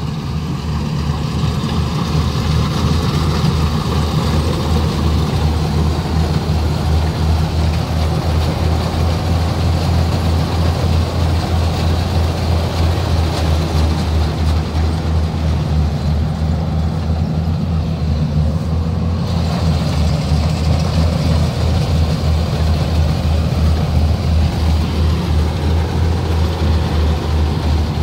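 Rice combine harvester running steadily as it cuts standing rice, heard up close beside its cutting header. Its diesel engine gives a loud, even, low pulsing drone.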